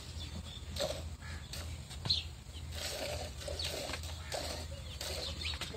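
Hand-milking: squirts of milk hissing into a steel bucket of frothy milk, in an uneven rhythm of one or two strokes a second.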